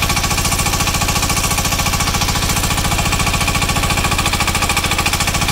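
Single-cylinder air-cooled diesel engine of a mini excavator running steadily, with a rapid, even pulsing beat.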